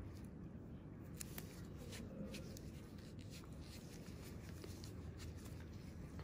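Faint scratching and small scattered clicks of cotton swabs and a needle working at the skin during a blackhead extraction, over a low steady hum.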